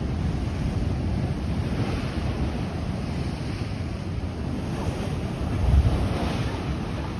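Ocean surf rushing over rocks, with wind buffeting the microphone in a low rumble. A bigger wave surges in near the end.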